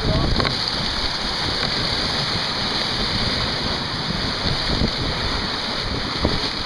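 Steady rush and hiss of water streaming and spraying past the hull of a racing sailboat sailing fast and heeled over.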